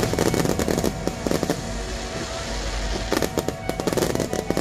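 Aerial fireworks crackling: a dense run of sharp, rapid pops and snaps from crackling shells, thickest in the first second and again from about three seconds in.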